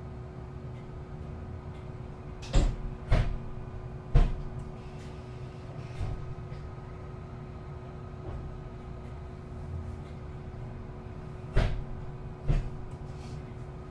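Inside a moving city bus: a steady engine and running hum, broken by sharp knocks and rattles from the bus body. Three knocks come close together around three seconds in, and two more come shortly before the end.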